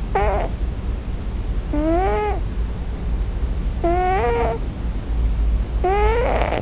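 Scottish Fold kitten crying in its sleep: four short meows about two seconds apart, each rising then falling in pitch, the last one rougher. The owner takes them for the kitten crying for its mother in a dream.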